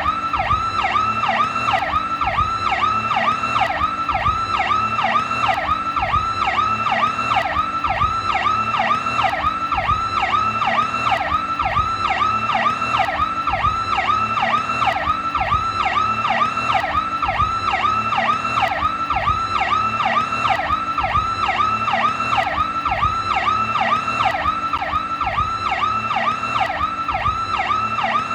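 New York police PowerCall electronic siren sounding a fast yelp: the pitch sweeps up and down several times a second in an even, unbroken cycle.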